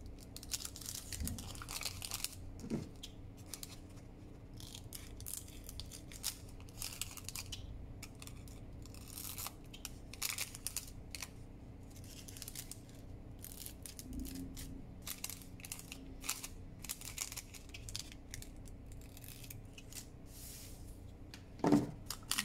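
Parchment paper baking cup crinkling and rustling as it is folded and creased by hand, with scissors snipping it partway through and a louder knock near the end.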